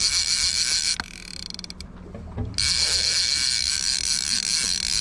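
Heavy trolling reel being cranked fast, its gears making a rattling whir, while reeling in a hooked Chinook salmon. The cranking stops for about a second and a half after the first second, with only faint ticks, then starts again.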